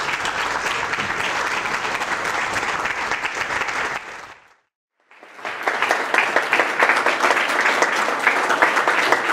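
Audience applauding, a dense patter of many hands clapping. The sound fades out to silence for about a second near the middle, then comes back with sharper, more distinct claps.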